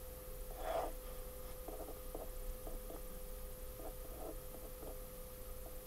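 Faint scratches and small taps of writing by hand, over a steady hum. The louder scratch comes just under a second in.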